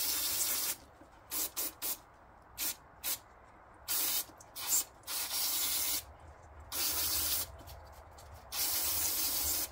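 Aerosol brake cleaner sprayed in repeated hissing bursts onto a Haldex pump strainer to wash it clean. Some bursts are short squirts and some are held for about a second.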